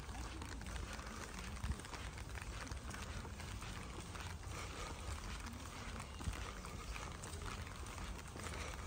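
Light rain falling, a steady patter of many small drops, over a low rumble.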